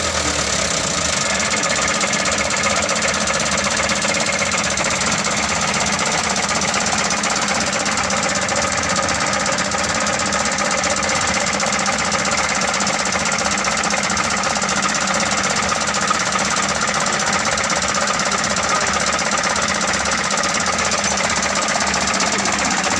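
Mitsubishi Canter 125's four-cylinder diesel engine running steadily at idle after its injection pump has been adjusted to cure hard starting.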